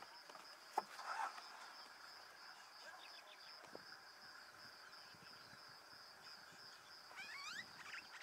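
Faint background of insects chirring steadily in a high, pulsing tone, with a single click about a second in and a few rising bird chirps near the end.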